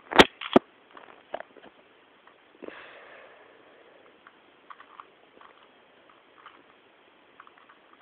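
Plastic Rubik's Cube being twisted by hand: two sharp clacks right at the start, then scattered lighter clicks as the layers are turned.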